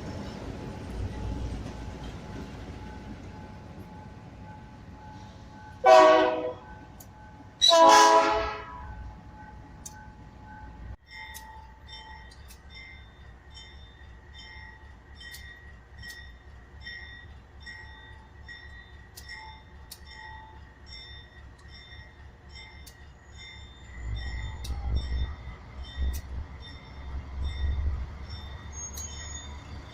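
Train horn sounding two blasts, the second longer, over the steady low rumble of a train. After that a faint short high beep repeats about once a second, and the low rumble grows louder near the end.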